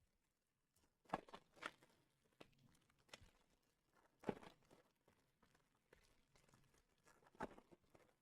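Faint crinkling and crackling of foil card-pack wrappers and trading cards being handled, a handful of short sharp crackles scattered through the quiet.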